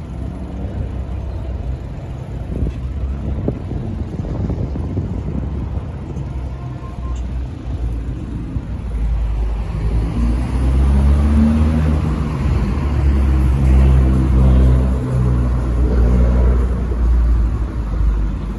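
City street traffic: an even low rumble, then from about halfway a car engine running close by, its steady hum louder and deeper for several seconds.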